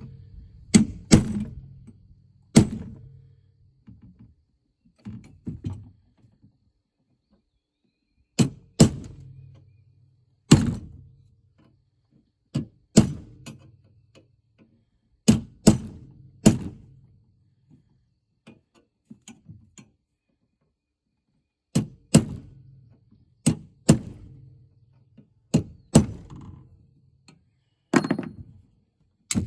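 Hammer blows on a steel punch driving sickle-section rivets through the McCormick sickle bar as it rests on a piece of scrap metal: sharp metallic strikes, often two or three in quick succession, with pauses of a few seconds between runs and a brief ring after the harder blows.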